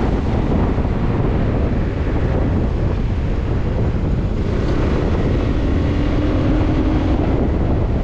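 Wind buffeting the microphone of a moving motorcycle, with the bike's engine and road noise steady underneath.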